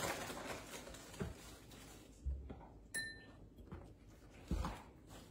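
Quiet kitchen handling sounds of a spoon and a small cup of graham cracker crumbs: scattered light scrapes and clicks, a single small clink about three seconds in, and a couple of soft knocks on the counter.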